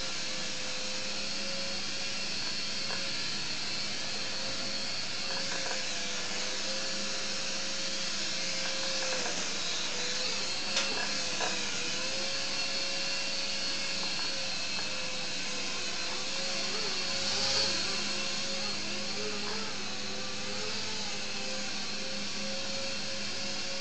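Air Hogs Helix 360 toy RC helicopter in flight: the steady whine of its small electric motors and rotor, the pitch dipping and recovering a few times. A brief click about eleven seconds in, and a short swell in loudness a few seconds later.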